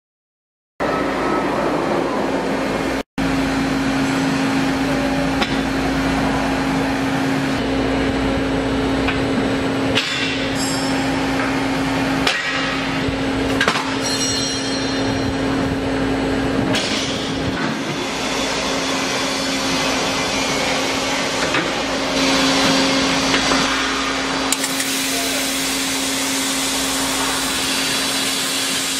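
Kotec newRun5 CNC beam drilling and band-saw line running, with a steady machine hum and a few sharp metal clanks as the steel H-beam is fed and clamped. Near the end a brighter hiss joins in as the drill cuts into the beam under coolant.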